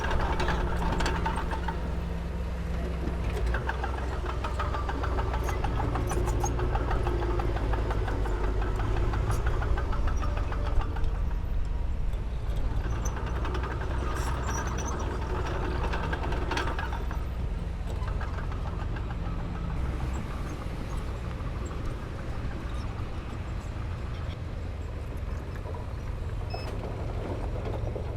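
Diesel engine of heavy earthmoving equipment running under load, its low note shifting a few times, with a few sharp knocks.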